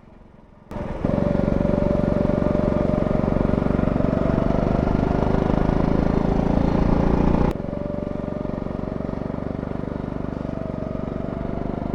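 Go-kart engine running at speed on track, its pitch rising slowly, over a broad rush of noise. The sound starts abruptly after a quiet moment and drops suddenly in level about seven and a half seconds in.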